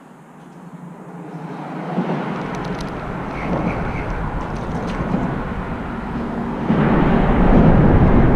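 Boat motor running, rising in loudness about two seconds in and again, more sharply, near the end.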